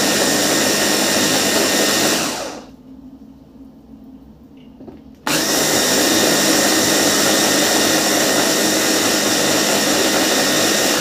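Electric hand blender with a chopper bowl attachment running steadily as it blends a paste. It spins down about two seconds in, stops for roughly two and a half seconds, then starts again abruptly and runs on.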